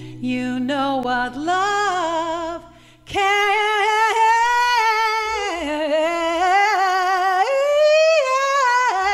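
A woman singing long, held wordless notes with vibrato, sliding between pitches, almost unaccompanied; there is a short break about three seconds in.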